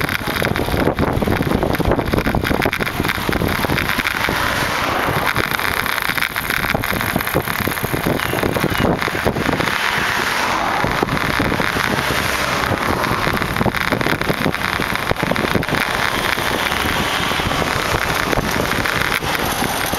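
Wind buffeting a handlebar or body-worn camera microphone while riding a bicycle, a loud, steady rush with crackle, mixed with road noise.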